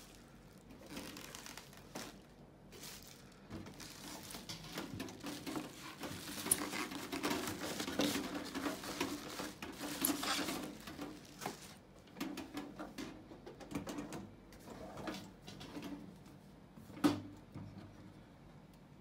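Clear plastic packaging film crinkling and rustling as it is pulled off a new electric oven, busiest in the middle and thinning out later, with one sharp knock near the end.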